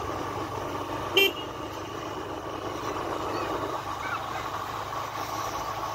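Road traffic on a village street: a steady vehicle hum, with one short horn toot about a second in.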